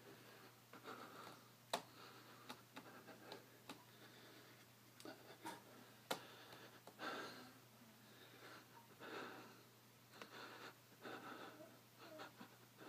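Faint, heavy breathing of a man straining to hold a plank, a breath every second or two, with a few sharp clicks between, the loudest about two seconds in.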